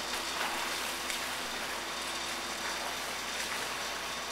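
Water splashing steadily as a swimmer kicks and strokes on his back in an indoor pool, with a few soft surges, over the pool hall's constant background hiss.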